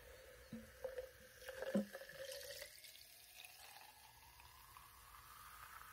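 Soda poured from a plastic bottle into a glass jar, faint. A few knocks and splashes early on, then a steady pour whose pitch rises as the jar fills.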